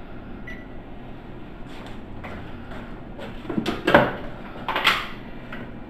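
Kitchen handling noises: a few light knocks, then two louder clattering knocks about four and five seconds in, as items are set down or moved on a kitchen counter, over a steady low hum.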